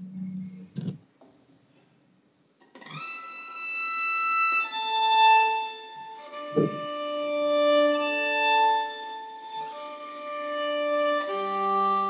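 A short knock about a second in, then a solo violin starts about three seconds in, playing slow, held notes that change every second or so. A soft thump comes midway.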